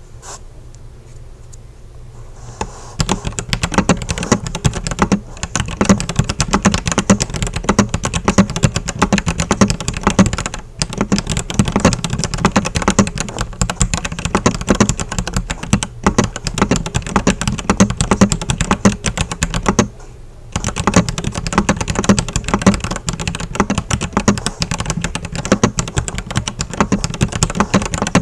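Typing on a RoyalAxe x ProtoArc F75 75% mechanical keyboard with PBT keycaps: a dense, rapid run of key clacks that starts about three seconds in, with two brief pauses, about a third and two thirds of the way through.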